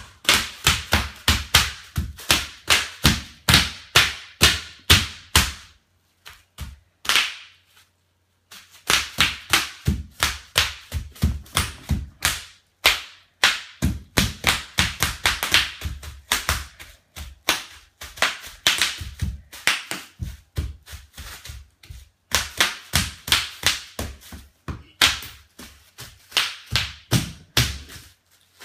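Bubble wrap popping under dancing feet: quick runs of sharp pops, several a second, with a short break about a quarter of the way in.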